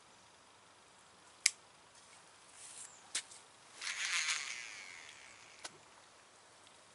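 Baitcasting fishing reel being worked: a sharp click, a second click, a brief high whirring of about a second, then a last small click.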